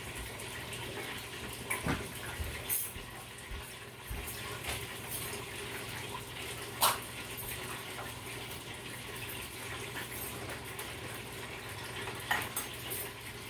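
Fish frying in a deep fryer: the oil sizzles in a steady hiss, with a few sharp clicks of utensils or dishes, the loudest about seven seconds in.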